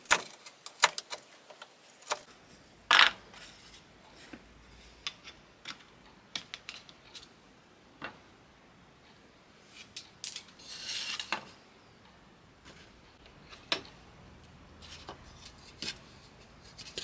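Scattered sharp clicks and knocks of a bench chisel and small pine pieces on a wooden workbench: the chisel paring out a stopped dovetail socket, then the dovetailed parts tapped and pushed together as the joint is fitted. A louder knock comes about three seconds in, and a brief scrape a little past halfway.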